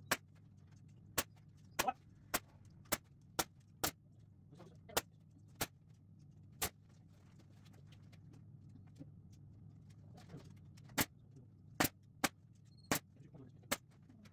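Pneumatic staple gun firing staples through chicken wire into a wooden frame: sharp single shots in quick irregular runs, with a pause of a few seconds in the middle, over a steady low hum.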